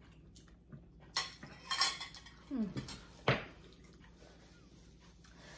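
Metal spoons clinking against ceramic soup bowls during eating: a few separate clinks, the sharpest about three seconds in.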